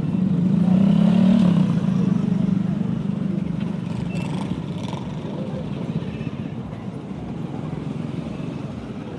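Motorcycle engine running, rising briefly in pitch about a second in, then fading steadily.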